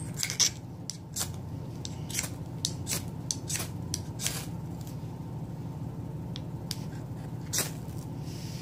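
Steel striker scraped down a ferrocerium (ferro) rod in short, sharp strokes to throw sparks onto a tinder until it catches. About a dozen quick scrapes, most of them in the first four seconds, then two more near the end.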